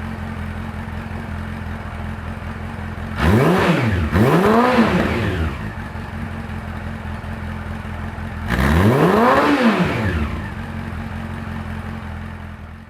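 Honda CB400 Super Four (NC39) inline-four idling through a Colors Striker carbon slip-on silencer, its throttle blipped twice in quick succession a few seconds in and once more later, each rev rising and dropping back to idle.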